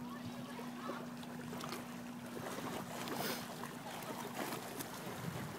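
Calm bay water lapping at a seawall, with light wind on the microphone and a steady low hum underneath.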